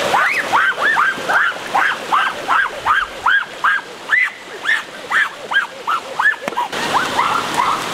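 An animal yelping rapidly: a fast run of short high calls, each rising then falling, about three a second. Rushing stream water comes back in near the end.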